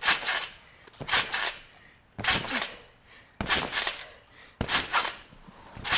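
A trick scooter bouncing on a trampoline, a sharp clattering hit about every second and a quarter as rider and scooter land on the mat, each with a metallic rattle that dies away.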